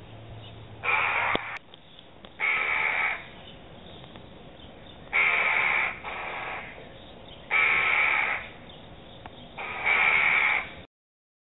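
Adult Eurasian jackdaws giving harsh alarm calls, about five in all, each under a second long and a couple of seconds apart: alarm at a threat to their young.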